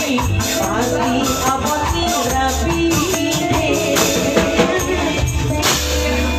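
Live band music with a hand-played tambourine jingling in quick regular strokes over a melodic line, possibly sung, and a bass. A sharp hit comes near the end, after which a low bass note holds.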